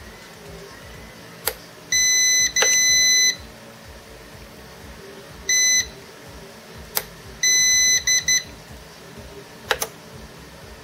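Prolink PRO701SFC UPS's internal beeper sounding several high-pitched beeps, two long ones, a short one, then a beep with quick short chirps, while its power button is pressed with sharp clicks. The UPS is being switched on and off on battery power.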